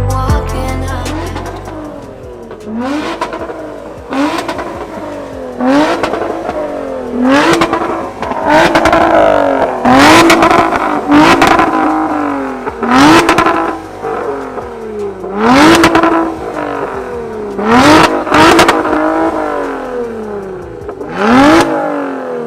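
Lotus Evora 400's supercharged V6 being revved hard while stationary, in about a dozen quick blips, each climbing sharply in pitch and falling back, with a sharp crack on many of them.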